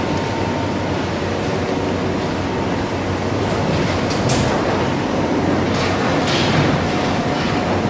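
Packing-line machinery running with a steady mechanical drone and a light hum: a motor-driven conveyor belt and a box-wrapping machine. A few sharp clicks stand out in the second half.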